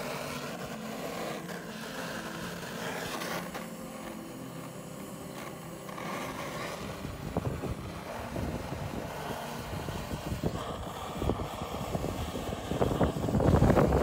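Handheld butane cartridge blowtorch burning against lump charcoal in a steel grill box to light it: a steady rushing hiss of the flame, louder near the end.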